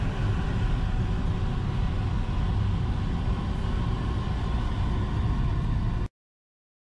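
Toyota 86's FA20 flat-four engine and tyre noise heard from inside the cabin, a steady low drone as the car climbs at low speed. The sound cuts off abruptly about six seconds in.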